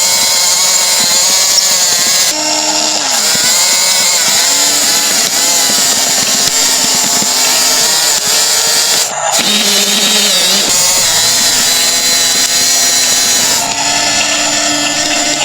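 Radio-controlled model bulldozer running, its motors and gear drive giving a loud, steady whine whose pitch rises and falls as it drives. There is a brief break about nine seconds in.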